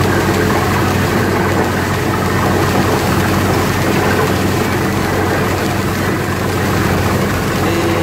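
Water-well drilling rig's engine running steadily with a low hum, while muddy water gushes and sprays out of the new borehole around the drill pipe: the well has struck water.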